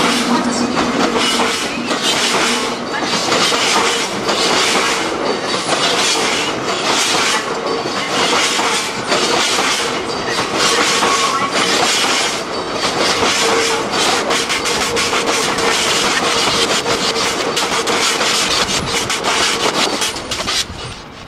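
A train running through a station, its wheels clattering over the rail joints in a repeated rhythm under a steady hum.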